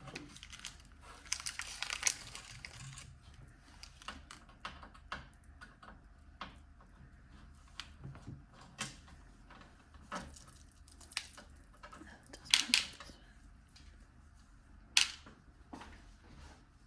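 Rustling of packaging near the start, then scattered small clicks and taps of computer parts being handled and fitted, a few sharper clicks later on.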